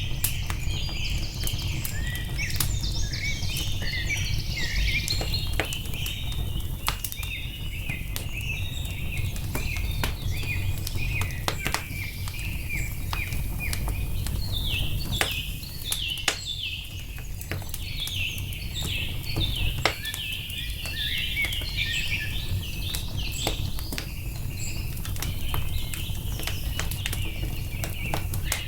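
Wood fire crackling, with many sharp scattered pops over a low steady rumble. Small birds chirp in quick repeated notes over it.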